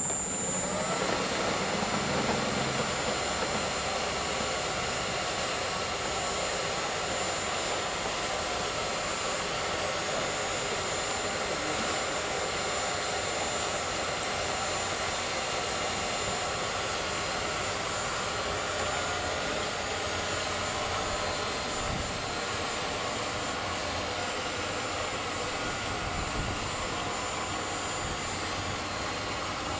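Overhead electric boat hoist running steadily as it winches a cabin cruiser up out of the water in slings: a continuous mechanical drone with a thin high whine.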